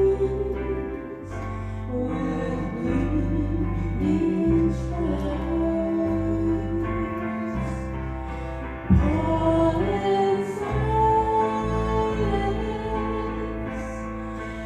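Small church choir singing a slow song in held notes, accompanied by guitar with a bass line moving under it.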